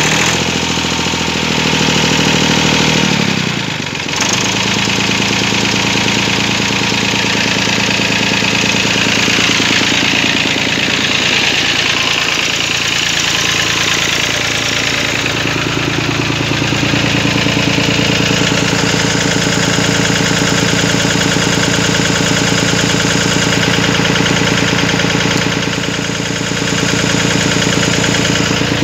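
Massey Ferguson 135's three-cylinder diesel engine idling just after a cold start in hard frost without preheating. Its note changes about four seconds in, then holds a steady idle.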